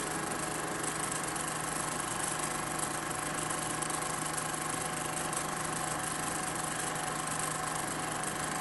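A machine running steadily: an even hum under a constant hiss, with no change in speed or level.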